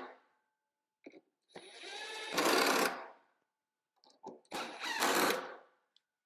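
Cordless drill driving two screws into plywood, one after the other, each run lasting about a second and a half, with a small click just before each as the bit seats in the screw head.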